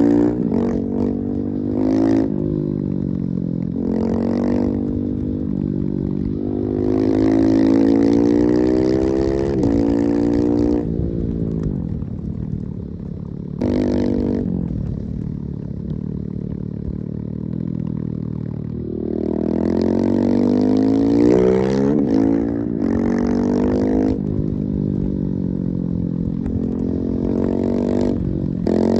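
Husqvarna 701's big single-cylinder engine accelerating hard: its pitch climbs through the revs, then drops at each gear change, several times over.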